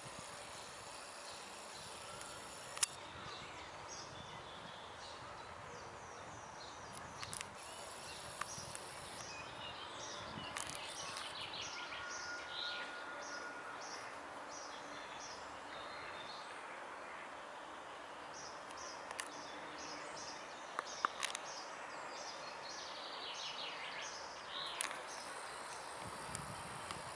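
Outdoor ambience: a steady background hush with small birds chirping in quick series of short, high notes, and a few sharp clicks.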